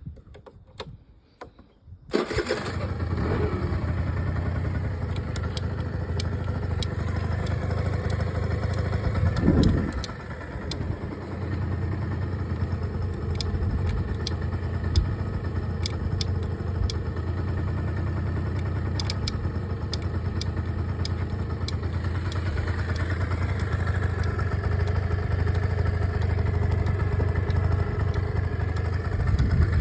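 Suzuki Verde 50 cc two-stroke scooter engine starting about two seconds in and then idling steadily, with a short rise and fall in engine speed about ten seconds in. The running noise carries what the owner takes for the early symptom of a crankshaft bearing noise.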